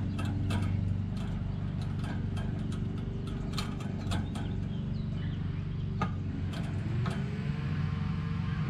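Sharp metallic clicks and small rattles of pliers twisting fence tie wire against chain-link mesh, thick for the first few seconds and then occasional. Under them a steady engine drone runs throughout.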